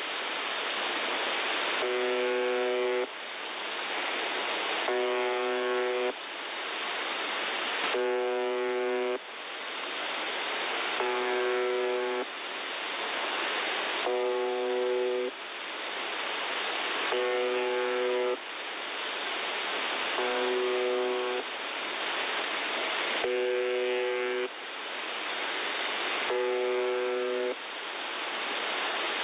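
The Buzzer (UVB-76) shortwave time-marker received in upper sideband: a short, roughly one-second buzz tone repeating about every three seconds. Between buzzes there is a hiss of static that swells until the next buzz, all heard through the receiver's narrow audio band.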